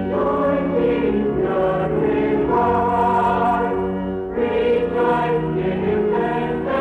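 A choir singing long held chords, with one phrase ending and the next beginning about four seconds in.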